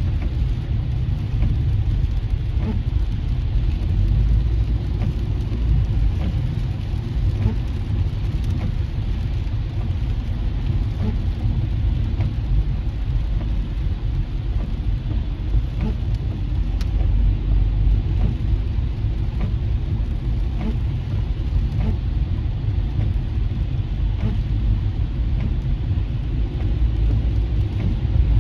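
Road noise heard inside a car driving on a rain-soaked freeway: a steady low rumble of tyres on wet pavement, with rain on the car.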